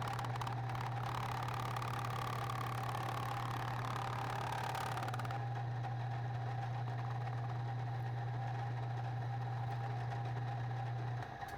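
Milling machine motor running steadily with a constant hum, with extra hiss over roughly the first five seconds, then shutting off near the end.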